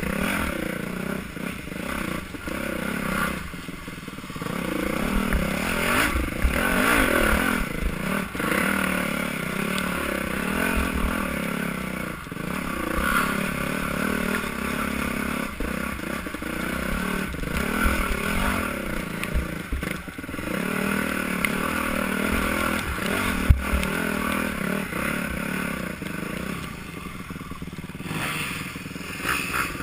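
Yamaha YZ250F dirt bike's four-stroke single-cylinder engine being ridden hard, revving up and down repeatedly as the throttle is worked, heard from a helmet-mounted camera. Scattered knocks and rattles from the bike over rough ground.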